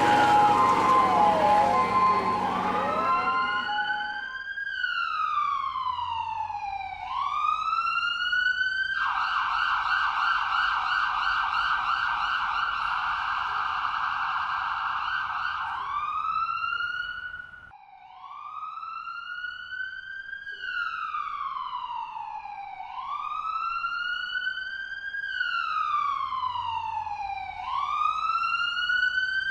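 Electronic emergency-vehicle siren. It opens with several siren tones overlapping, then settles into a slow wail that rises and falls over about four to five seconds. It switches twice to a rapid yelp: once for about seven seconds in the middle and again near the end.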